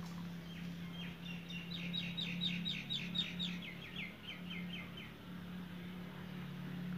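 A small bird singing a fast trill of short, downward-sliding chirps, about four or five a second, that swells and then fades out after about five seconds. A steady low hum runs underneath.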